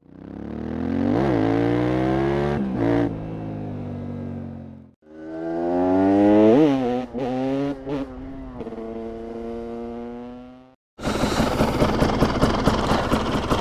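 TM SMR 300 supermoto's single-cylinder two-stroke engine revving, its pitch climbing and dropping with several quick throttle blips, in two separate stretches. Near the end it cuts to a harsher, rougher, noisier engine sound.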